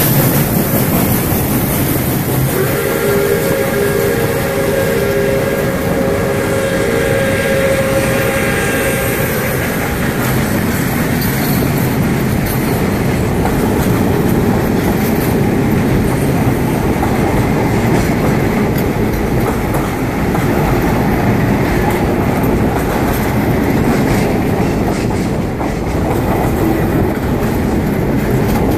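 Pere Marquette 1225, a 2-8-4 Berkshire steam locomotive, and its passenger train passing close at speed, the cars' wheels clacking over the rail joints. A few seconds in, the steam whistle sounds a steady chord of several notes for about seven seconds.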